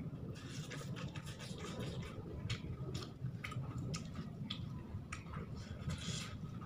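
Close-up eating sounds: wet chewing and mouth smacks as a mouthful of rice and noodles is eaten by hand, with irregular crackles of the paper wrapping as fingers dig into the food. A steady low hum runs underneath.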